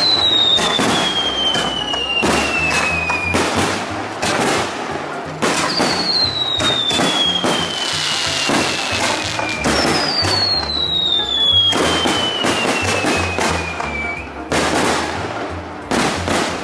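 Fireworks display: aerial shells bursting one after another with bangs and crackle, and three long whistles that slide steadily down in pitch, each lasting about four seconds.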